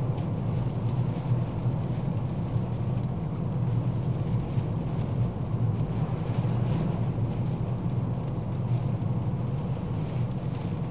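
Steady road and engine drone of a small Ford Fiesta hatchback driving along, heard from inside the cabin: an even low rumble with no distinct events.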